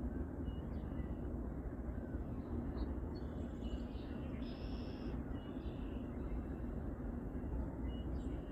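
Short bird chirps and calls scattered over a steady low rumble of outdoor background noise, the most prominent call about halfway through.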